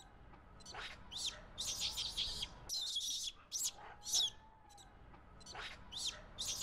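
High-pitched animal chirping, sold as monkey chirps: quick, sharp calls, some sweeping up or down in pitch, coming in rapid clusters, with a lower rising call twice.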